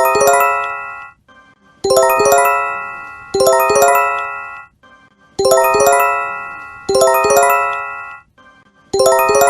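Japanese J-Alert emergency warning chime: a quick spread chord of bell-like tones struck twice, about a second and a half apart, the pair repeating every three to four seconds, each strike ringing out over about a second.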